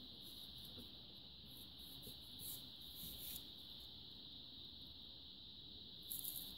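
Near silence with a steady faint high-pitched hiss, broken by a few faint crackles about two to three seconds in and again near the end, from a soldering iron's thin heating-element wire and mica-wrapped core being handled.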